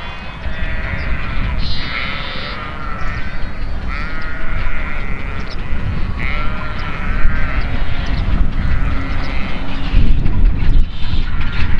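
Sheep bleating over and over, with several wavering calls overlapping. Underneath, the low rumble of a passing steam train grows louder toward the end.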